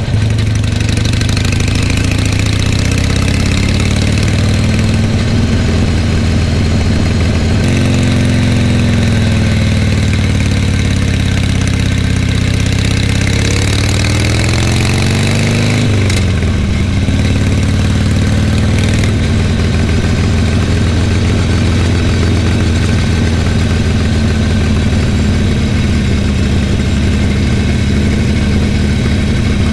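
Harley-Davidson Sportster's V-twin engine running while the bike is ridden, with wind rush on the microphone. About halfway through, the engine note climbs for a few seconds and then drops sharply.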